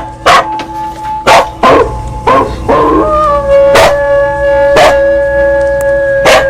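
Temple bell struck repeatedly, roughly once a second, each strike leaving a ringing tone that carries into the next. A dog howls along with the bell about two to three seconds in.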